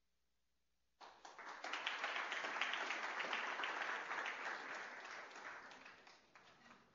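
Audience applauding: the clapping starts suddenly about a second in, holds strong for a few seconds, then dies away near the end.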